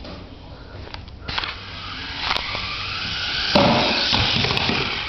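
Remote-control car running: a noisy whir of its motor and tyres starts about a second in and grows louder, heavier from about three and a half seconds, with a few sharp clicks.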